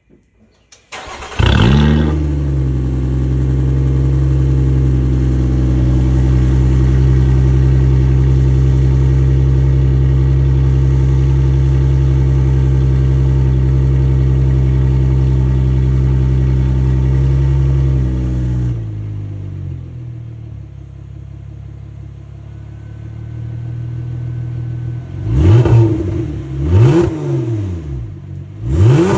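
Lotus Emira engine breathing through a GRP titanium exhaust with a decat, exhaust valve closed, started about a second in. It settles into a loud, steady fast idle, drops to a lower, quieter idle a few seconds past the middle, then is blipped in three short revs near the end.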